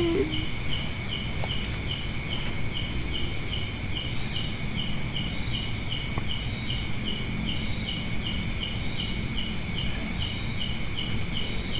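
Night insects calling: a steady high drone with a cricket chirping about three times a second, over a low background rumble.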